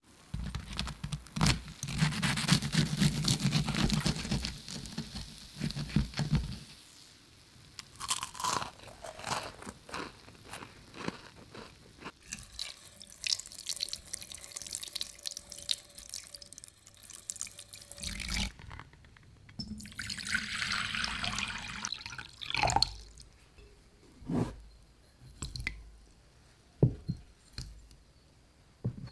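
A run of kitchen sounds: crispy fried-chicken crust crunching, then raw chicken pieces handled and rinsed in water in a steel bowl, then a spoon tipping sugar into water in a glass bowl with light clinks.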